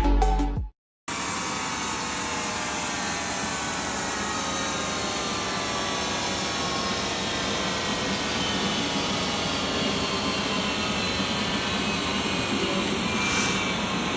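Electronic music cuts off in the first second; after a brief gap, a jet aircraft engine runs steadily, an even rushing noise with faint whining tones that slowly fall in pitch.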